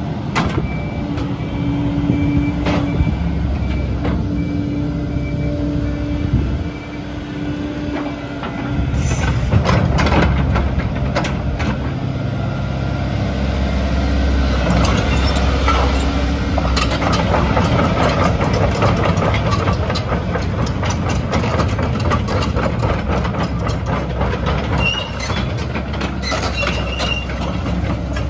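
Volvo EC140EL crawler excavator's diesel engine running, with a steady whine over it for the first several seconds. About nine seconds in the engine note gets louder and heavier, and a dense run of metallic clicks and clanks continues over it.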